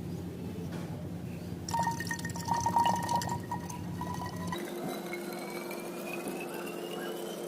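Water splashing and pouring into a small container, its pitch slowly rising through the second half as the container fills.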